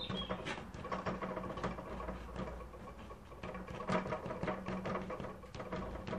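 Watercolour paint being scraped out of damp paper to form small rocks: a quick run of short scratches and taps on the paper, over a faint steady hum.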